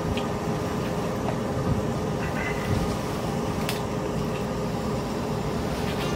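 Steady droning hum, like ventilation or air-handling machinery, with a few faint clicks.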